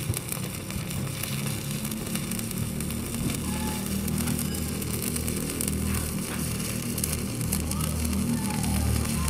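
Stick (MMA) welding arc from a Tenya CUT-60 inverter on its stick function, a 3.2 mm electrode burning at about 160 A on 10 mm steel plate: an even hissing crackle of many fine snaps as a continuous bead is run.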